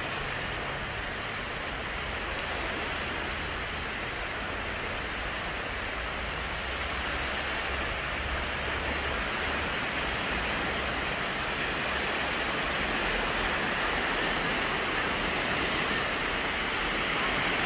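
Small waves washing onto a sandy beach: a steady surf hiss that grows a little louder near the end.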